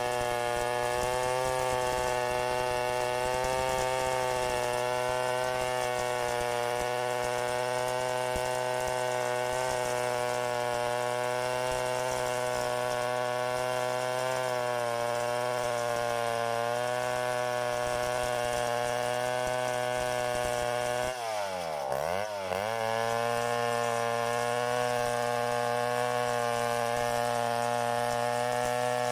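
Stihl 070 two-stroke chainsaw running at high revs as it cuts through a log. About 21 seconds in, the revs drop sharply and then climb back within about a second and a half.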